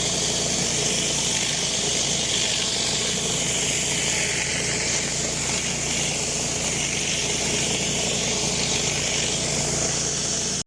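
Pressure washer running steadily: a motor hum under the hiss of high-pressure water spraying onto a concrete driveway.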